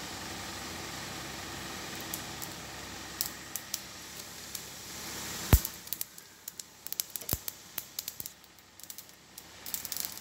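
Hot oil sizzling with mustard and fenugreek seeds in a kadai, a steady hiss for the first half. After a sharp click about halfway, the hiss drops and scattered crackles and pops follow as the mustard seeds begin to splutter, the sign that the oil is hot enough for the tempering.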